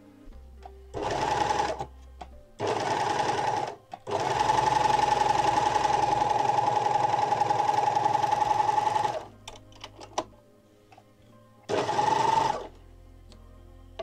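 W6 454 overlock (serger) stitching through cotton fabric in two short bursts, then a steady run of about five seconds, stopping, and one more short burst near the end.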